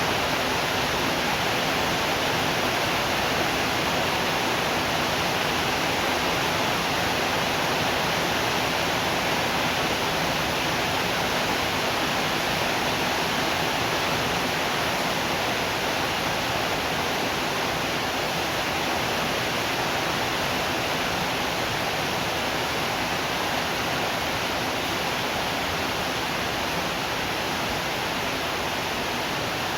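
Rain falling steadily, an even unbroken hiss with no thunder.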